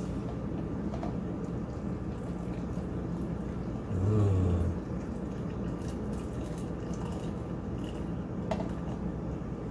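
Just-boiled water pouring in a thin, steady stream from an electric kettle into a glass bowl of Jello powder. A short low hum about four seconds in.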